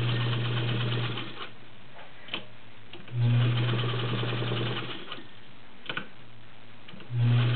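An all-metal 3/4-size Singer 99-clone straight-stitch sewing machine, with a 1-amp motor, stitching through six layers of thick cotton upholstery fabric in three short runs: motor hum and rapid needle ticking. It stops about a second in, runs again near the middle, and starts once more near the end, with a few sharp clicks in the pauses.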